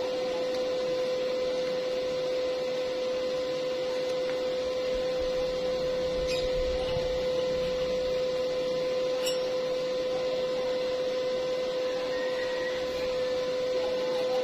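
A steady mid-pitched hum that holds one unchanging pitch throughout, with a few faint ticks.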